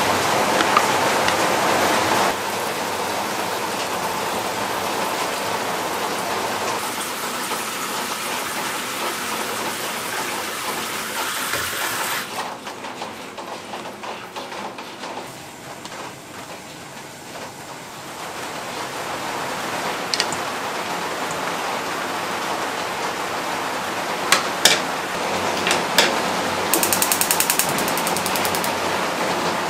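Pot of broth at a steady boil, bubbling and hissing, with mushrooms tipped into it at the start. Near the end come a few sharp knocks, then the rapid ticking of a gas stove's igniter as a burner is lit.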